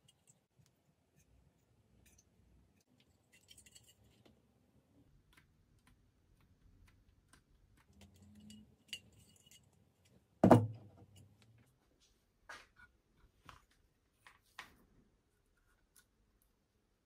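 Handling noises of loudspeaker drivers: soft rustling and light ticks, one sharp knock about ten seconds in that is by far the loudest sound, then a few sharp clicks as wire connectors are pushed onto a driver's terminals.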